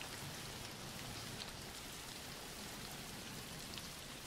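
Faint, steady rain falling: an even hiss of rain with no other sound.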